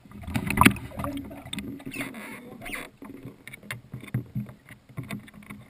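A pet lapping water from a bowl, heard through a GoPro lying at the bottom of the bowl: irregular splashes and knocks, the loudest about half a second in, then lighter laps about three to four a second.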